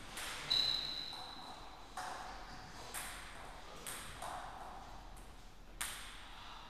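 Table tennis ball bouncing several times at uneven intervals, each bounce a sharp click. The first and loudest comes about half a second in and has a short ringing ping.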